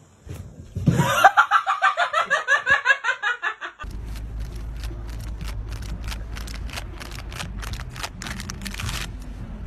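A fast, rhythmic run of short, high-pitched cries, about seven a second, for some three seconds. Then a steady low wind rumble on the microphone with a quick series of clicks.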